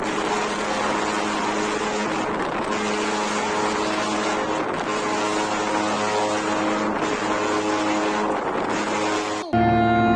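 A ship at sea in a storm: a steady rush of wind and water noise with a droning hum that fades in and out. Near the end it cuts suddenly to music with long held notes.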